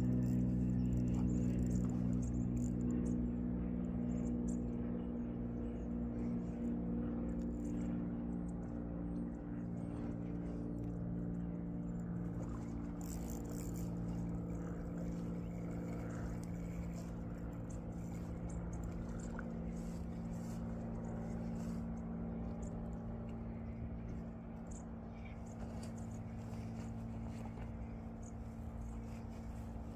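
A motor's steady, even-pitched drone, slowly fading, with scattered faint clicks over it.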